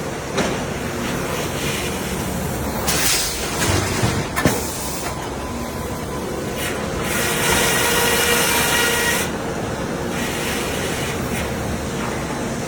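Sawmill machinery running steadily, with a high saw whine that comes and goes as the blade cuts. There is a sharp knock about four and a half seconds in.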